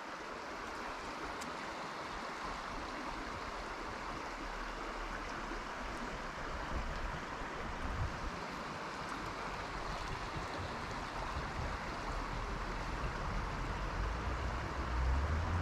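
A small, shallow stream running steadily, a continuous rush of water.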